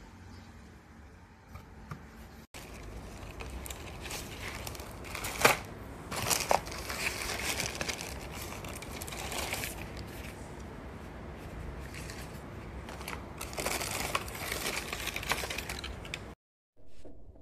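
Crumpled silvery plastic packaging wrap being handled and pulled open, crinkling and crackling with a few sharper crackles. It starts about two and a half seconds in and cuts off abruptly near the end.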